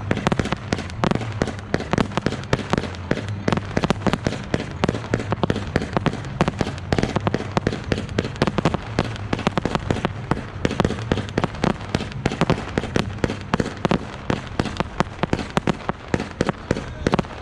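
Fireworks display firing coloured stars in rapid succession: a dense, continuous string of sharp pops and bangs, many per second.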